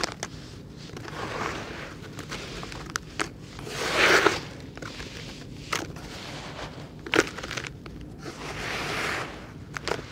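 Hands crumbling and squeezing dry soil and chalky clay lumps in a bucket: gritty crunching and rustling in swells, the loudest about four seconds in, with several sharp little cracks as lumps break, one standing out about seven seconds in.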